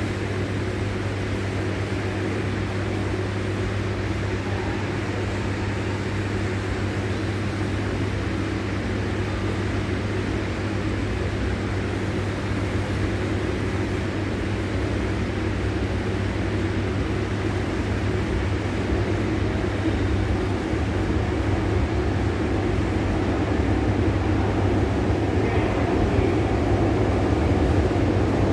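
Fiat-Materfer subway train on Subte Line E approaching the station through the tunnel: a steady low hum and rumble that slowly grows louder as the train nears the platform.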